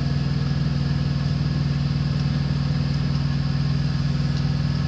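Semi-truck diesel engine idling: a steady low hum with a fast, even pulse, heard from inside the cab.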